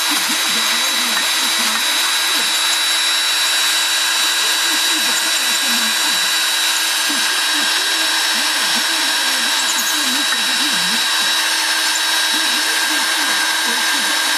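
Electric drill running steadily under load, a continuous high whine, as a drill bit bores out a hole to enlarge it.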